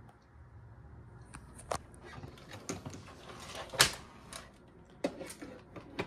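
Handling noise: scattered knocks and clicks, about six of them, the loudest about four seconds in, over a faint low hum. No vacuum motor is running.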